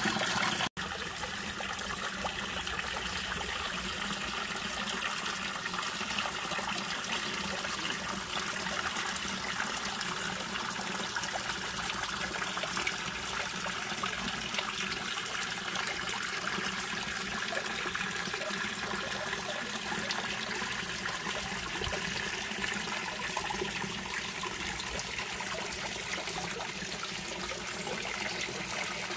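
Backyard pond waterfall: a steady stream of water pouring off a stone spillway and splashing into the pond below. The sound drops out briefly less than a second in.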